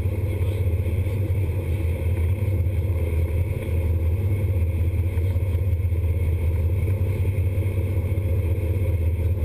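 Sportfishing boat's engines running steadily under way: a constant low drone mixed with the rush of the wake.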